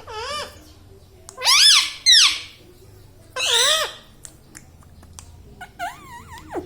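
Indian ringneck parrot vocalizing in short, high, wavering calls, four loud ones in the first four seconds and a few softer ones near the end.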